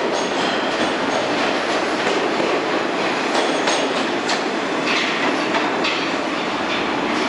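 R46 subway train rolling into the station and slowing to a stop, its wheels clattering over the rail joints. Short high wheel or brake squeals come in the second half.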